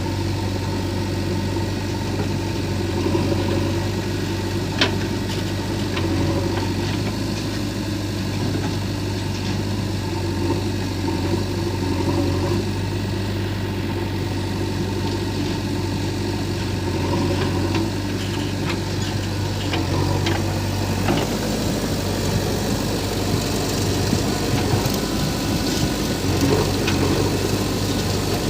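Diesel engine of a backhoe loader running steadily with a low hum, with a few short sharp knocks scattered through.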